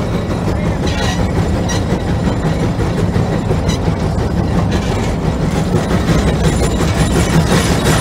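Case 150 steam traction engine and the gang plow it pulls, running under load with a steady heavy rumble and clatter.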